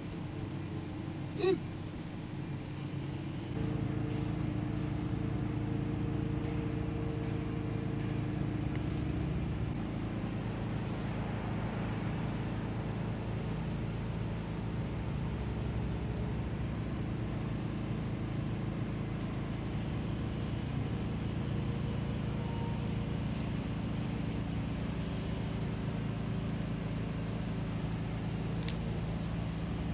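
Motor vehicle engine idling: a steady low hum that gets louder about three and a half seconds in, with one sharp click about a second and a half in.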